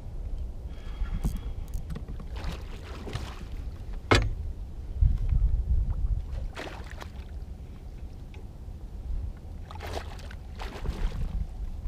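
A hooked pike splashing at the water's surface beside the boat several times, over a low rumble of wind on the microphone, with a sharp knock about four seconds in.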